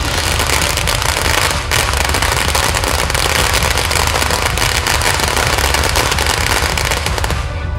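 Firecrackers going off in a dense, continuous crackle of rapid bangs, with a brief dip about two seconds in.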